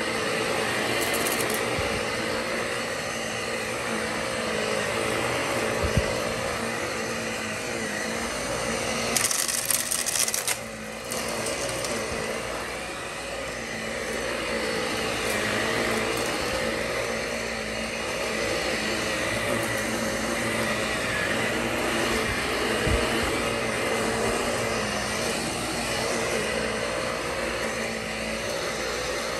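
Shark Navigator upright vacuum running steadily while pushed back and forth over a rug, with a brief burst of rattling about nine seconds in. The clog, a sock stuck in the airway, has been cleared, and it runs normally.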